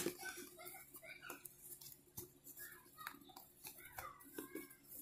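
Faint handling sounds: light clicks and taps as fingers pick at silicone ear tips in a plastic tray inside a cardboard box, the sharpest click at the very start, with faint short squeaky chirps in between.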